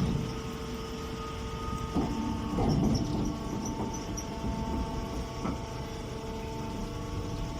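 Machinery running with a steady hum and low rumble, with a few knocks.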